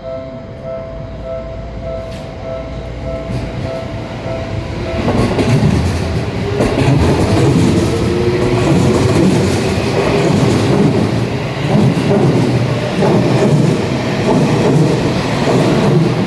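Japanese level-crossing warning bell ringing in a steady, rapid kan-kan pattern. About five seconds in, a Seibu Ikebukuro Line electric train passes close by, loud, its wheels clattering rhythmically over the rail joints and drowning out the bell.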